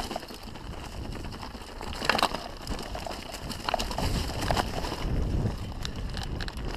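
Canyon Strive enduro mountain bike descending a rocky dirt trail, heard from a chest-mounted camera: tyres rolling over stones and roots with a steady rush of wind on the microphone, and the bike clattering on impacts, loudest about two seconds in.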